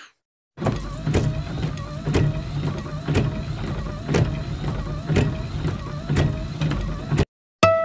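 Sound-effect track laid over a title card: a low rumble with a regular beat of about two hits a second, which cuts off suddenly near the end. Right after, a bell-like chime strikes and rings on.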